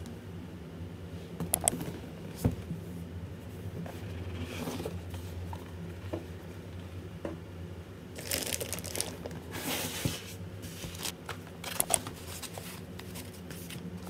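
Unboxing a keyboard: a clear plastic wrapping bag crinkling and rustling, dense foam packing inserts being handled, and a few light knocks as the box and packaging are moved, over a low steady hum.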